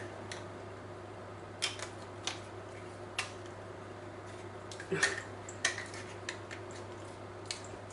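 Hand-turned pepper mill being twisted, giving scattered clicks and light knocks, the loudest about five seconds in, over a steady low hum.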